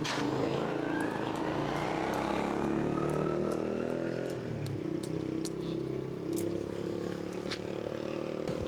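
Small engine running steadily, its pitch wandering slightly, with scattered light clicks over it.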